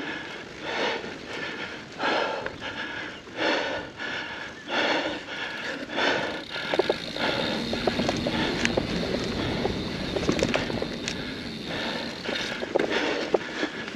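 Mountain biker breathing hard under exertion, in rhythmic gasps about once a second. For several seconds in the middle the breaths fade under a steadier rush of riding noise with sharp clicks and rattles from the bike on rough trail.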